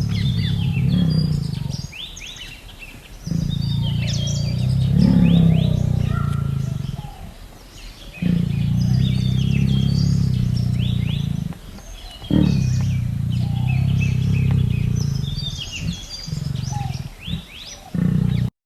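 A large animal giving long, low rumbling growls, four of them, each lasting three to four seconds with short pauses between, while small birds chirp in the background.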